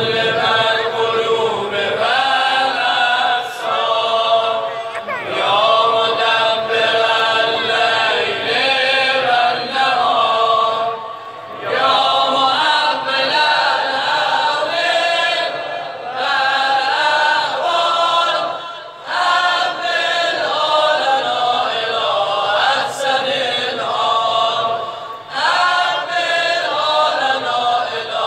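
A group of men singing a chant together, unaccompanied, in long phrases with short pauses between them.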